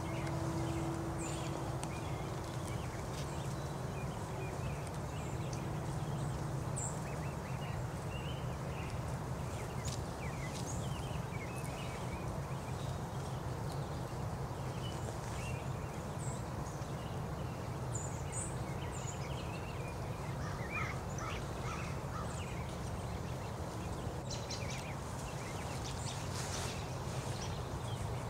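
Outdoor ambience: a steady low rumble under scattered short, high chirps and chips of small birds.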